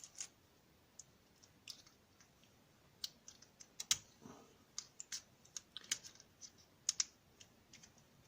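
Irregular, faint metallic clicks and taps of small tools working at the strong retaining C-clip on an Abus Pfaffenhain V14 lock cylinder, coming thicker about halfway through.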